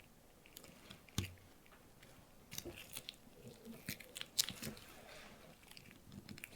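Knife strokes on a cutting board: a quick, irregular run of crisp clicks and crunches, with a single soft knock about a second in.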